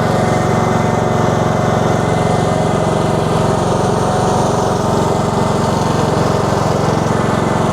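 Husqvarna TS142 riding lawn mower's engine running steadily under load while the mower drives through thick swampy mud.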